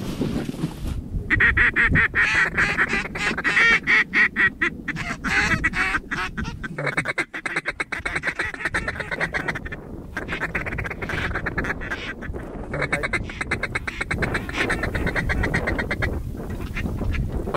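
Duck call blown close by in long runs of fast, rapid-fire chatter, with short breaks between runs, calling to ducks in flight.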